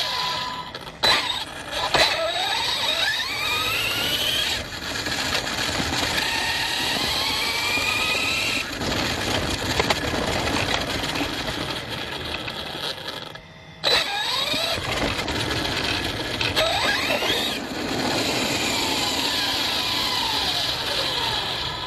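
Brushless electric motor and drivetrain of an ARRMA Fireteam 6S RC car whining up and down in pitch as it speeds up and slows over rough ground, over a constant rattle of tyres and suspension, with a couple of sharp knocks in the first two seconds.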